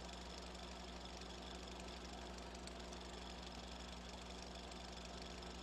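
A steady mechanical hum with a constant hiss over it.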